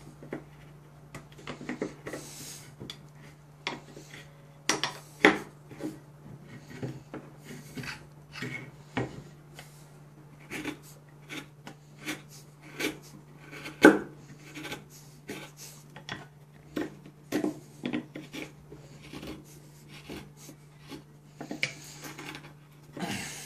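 Carbon-steel Mora Companion MG knife cutting into a pine block: a run of irregular scraping strokes and sharp cracks as the blade slices the wood, the loudest about five seconds and fourteen seconds in.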